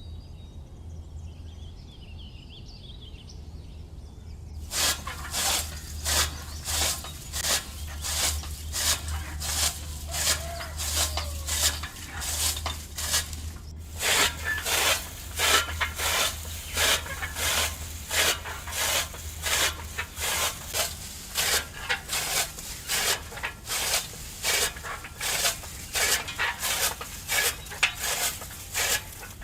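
Grass being cut by hand with a sickle: repeated rasping strokes through the stems, about two a second, starting about five seconds in, with a short break near the middle. A faint low hum and a few bird chirps lie under the opening seconds.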